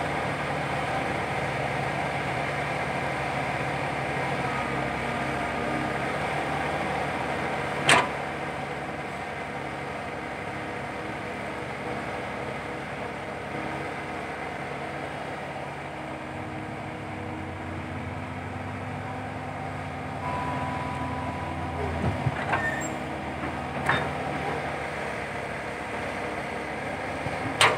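Komatsu PC120-5 hydraulic excavator's diesel engine running steadily while it digs. The engine note drops and shifts about halfway through as the hydraulics take load. There is a sharp knock about eight seconds in and a few more near the end.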